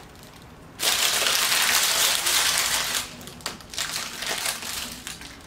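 Foil wrapper crinkling as it is crumpled in the hands: a loud crackling that starts about a second in, then softer broken crinkles near the end.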